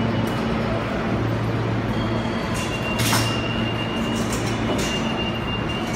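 Subway station ambience: a steady rumble and hiss with a low hum, and one sharp clack about three seconds in.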